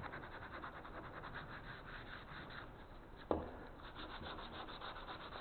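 80-grit sandpaper rubbed by hand over a 2x4 wood block in rapid back-and-forth strokes. There is a single light knock a little over three seconds in.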